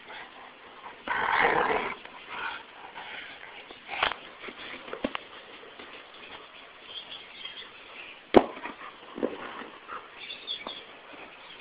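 A dog playing with a soccer ball: a loud vocal burst from the dog lasting under a second about a second in, then scattered sharp knocks as the ball is pawed and nosed over the ground, the loudest a little past the middle.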